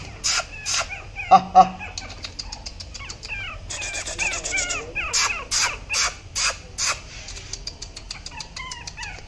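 Person making repeated kissing and clicking sounds with the lips to call a Yorkshire terrier puppy, in two bunches, one near the start and another past the middle. Birds chirp between them.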